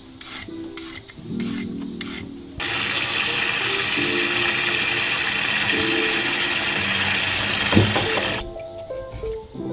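Tap water running into a sink basin of peeled burdock roots for about six seconds and then shutting off abruptly, after a few short scrapes of a vegetable peeler on burdock skin. Soft background music plays throughout.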